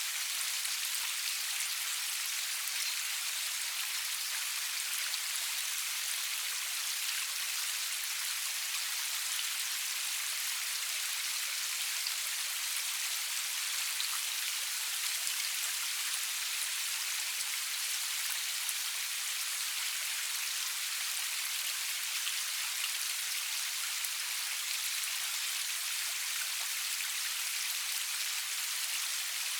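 Steady rain falling, an even hiss of many drops pattering on a surface, with no thunder.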